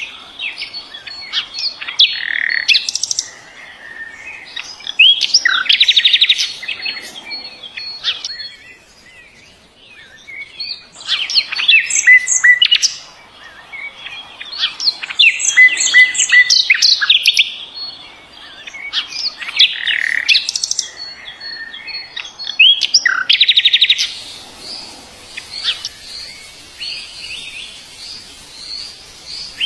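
A songbird singing in repeated phrases of whistled notes and fast trills, every few seconds. From about 24 s a steady high hiss comes in under the song.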